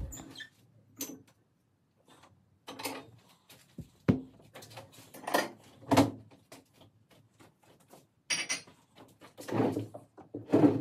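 Scattered knocks, bumps and rustling of handling and moving about a room, with a wooden sideboard being rummaged in near the end.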